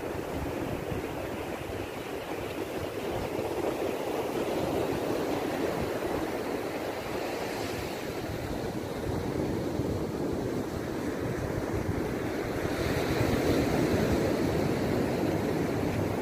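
Ocean surf washing onto a sandy beach, a steady rushing that swells a little near the end, with wind buffeting the microphone.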